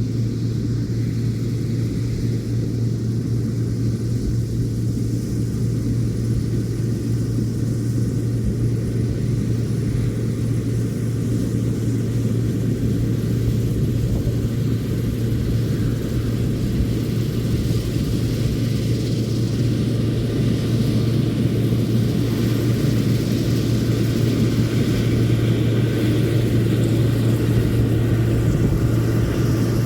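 Combine harvester running steadily while harvesting soybeans, heard from the cab as a constant low engine and machinery hum that grows slightly louder over the second half.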